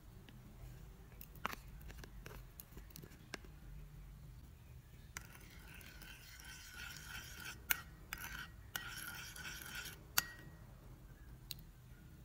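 Quiet kitchen utensil sounds: a few light clicks and taps, then about five seconds of scraping with a faint steady squeal, broken by sharp clicks, and a last click near the end.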